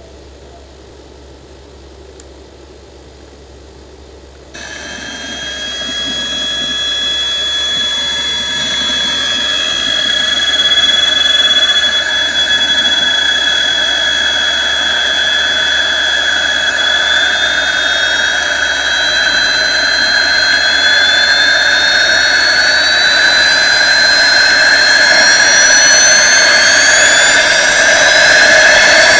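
Simulated twin-turbine jet sound from a Benedini TBSmini sound module, played through a 4-inch speaker in a Dynam Me 262 RC model. After a quiet first few seconds it starts suddenly with a steady whine and grows louder. In the last ten seconds two whines climb in pitch as the simulated turbines spool up.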